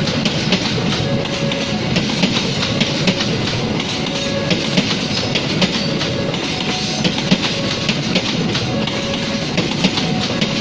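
Passenger train coaches rolling steadily past at close range, steel wheels rumbling and clacking over the rail joints in an irregular run of clicks.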